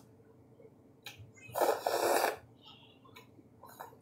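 A person slurping up a mouthful of chow mein noodles in one loud slurp of under a second, with a few short wet mouth clicks from chewing before and after it.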